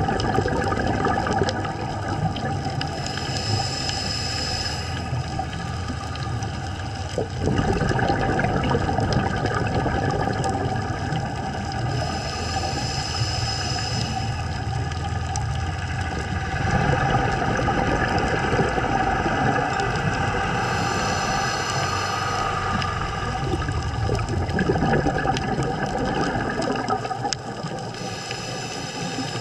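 Scuba diver breathing through a regulator underwater: a short hissing inhale about every eight to nine seconds, with exhaled bubbles burbling between the breaths.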